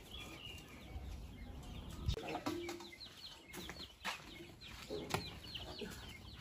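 Chicks peeping over and over in short, high, falling chirps, with a few sharp knocks scattered through.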